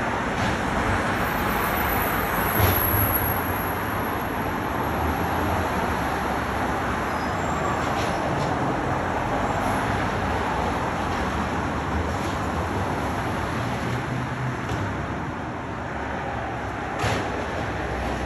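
Automated side-loader garbage truck's engine running steadily amid street traffic as the truck empties a recycling cart and moves ahead, with a sharp clank about two and a half seconds in and another near the end.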